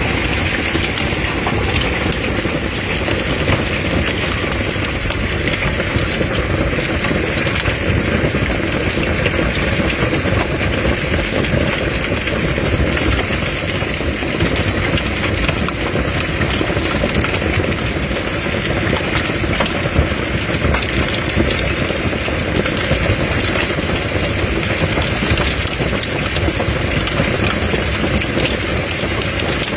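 Hailstorm: hailstones and heavy rain pelting down in a steady, dense din.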